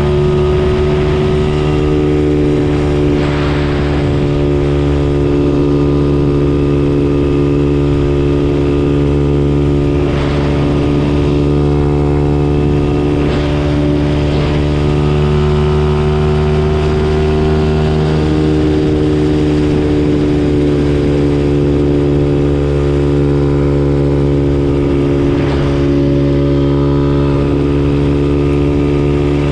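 Amigo Rocky 125 CT70-clone mini bike's 125 cc single-cylinder engine running steadily through an aftermarket pit-bike exhaust, its pitch drifting slightly up and down.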